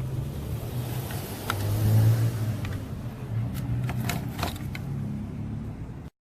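A motor vehicle engine running, swelling briefly about two seconds in, with a few light clicks over it; the sound cuts off suddenly near the end.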